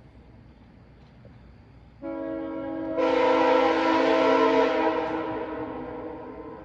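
Nathan Airchime K5CA-LS five-chime air horn blowing a steady chord. It comes in about two seconds in and swells sharply to a very loud full blast a second later. It then slowly tapers off.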